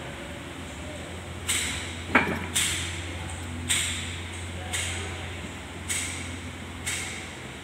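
Repeated hammer strikes on metal, seven blows spaced about a second apart, each with a short ring, over a steady low hum.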